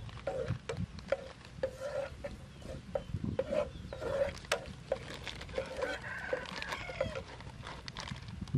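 Chickens clucking in short, irregular calls throughout, over the scattered scrapes and clicks of a spatula stirring in a frying pan.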